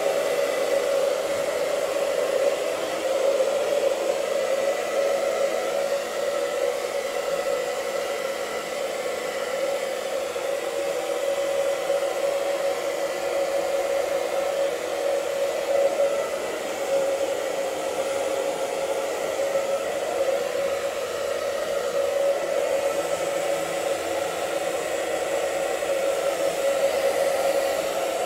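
Handheld hair dryer running steadily, a constant rushing hum with a thin whine, blow-drying a beard. It swells and dips a little in loudness as it is moved around.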